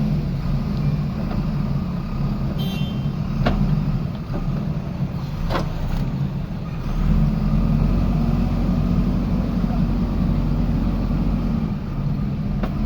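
Diesel engine of a JCB 3DX backhoe loader running as it digs, its note rising and holding steadier about halfway through as the load comes on. Two sharp metallic knocks come a couple of seconds apart before that.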